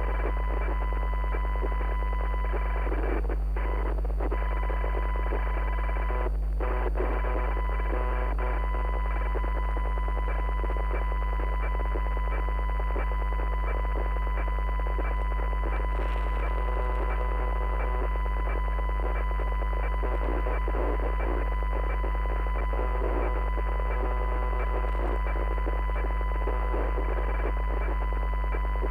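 Steady electronic broadcast noise: a deep, loud hum under a hissing, crackling static with a thin steady high tone on top, briefly dropping out a few times in the first seven seconds.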